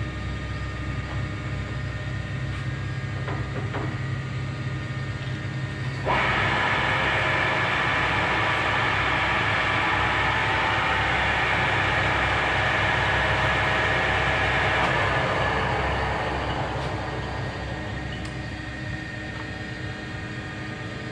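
Monarch 610 Hydro Shift lathe's headstock and spindle running at high speed, set to about 1400 RPM, over a steady motor hum. The loud running noise, with a high whine in it, starts suddenly about six seconds in, holds steady, then dies away over a couple of seconds as the spindle winds down.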